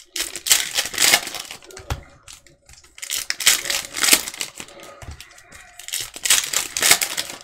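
Plastic-foil trading card pack wrappers being torn open and crinkled by hand, in three bursts of crinkling a couple of seconds apart.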